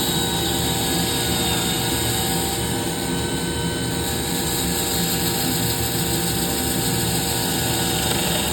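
Electric power sander running steadily against a wooden vase spinning on a wood lathe, with the lathe's motor humming underneath.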